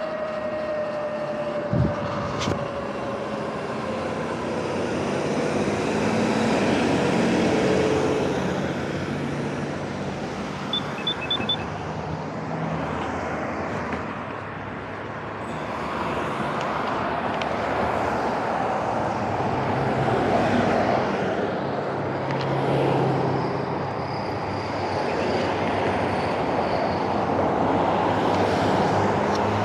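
Road traffic passing an intersection: car engine and tyre noise on wet pavement swelling and fading as vehicles go by, several times over. A falling whine near the start, and three quick high beeps about eleven seconds in.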